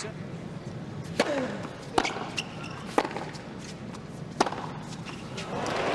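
A tennis ball bounced on a hard court several times, sharp thuds about a second apart, over the low murmur of a stadium crowd.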